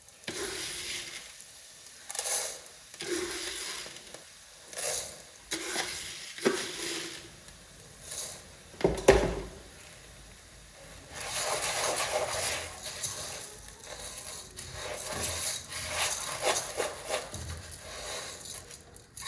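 Kitchen handling sounds: dishes, pans and utensils knocking, clinking and scraping at irregular moments, with one sharp knock about halfway through and denser rubbing and scraping in the second half.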